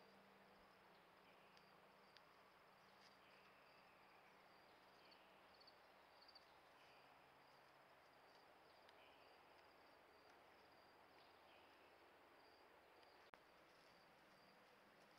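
Faint outdoor chorus of high-pitched trilling with soft chirps every second or so, at a very low level. A single sharp click comes near the end.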